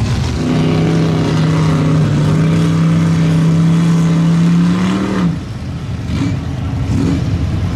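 Lifted mud truck's engine revving hard and held at high revs as it churns through deep mud, its pitch creeping slowly up, then dropping off suddenly about five seconds in. Quieter engine and mud noise follow.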